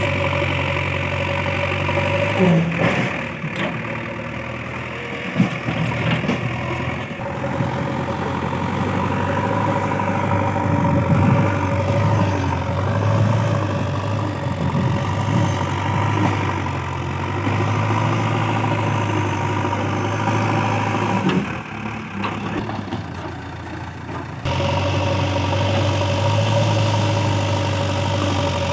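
JCB 3DX backhoe loader's diesel engine running steadily while the machine works, with a few sharp knocks. It eases off twice, briefly, before picking up again.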